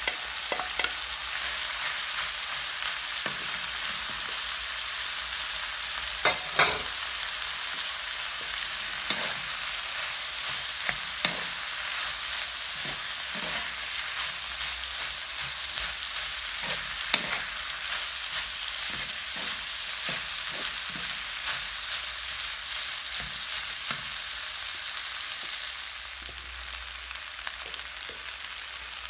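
Cooked rice and vegetables sizzling steadily in a nonstick frying pan while a wooden spatula stirs and turns them, with irregular scrapes and taps against the pan. There are two louder knocks about six seconds in.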